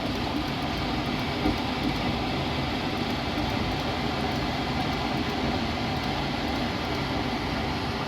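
Steady whooshing hum of running furnace equipment, with no sudden events.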